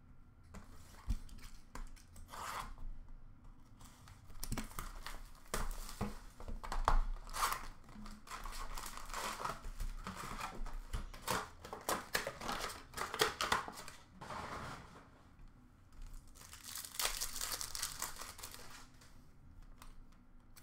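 A sealed box of 2020-21 O-Pee-Chee Platinum hockey cards and its wrapping being torn open by hand. Irregular tearing and crinkling comes in bursts, loudest near the middle and again near the end.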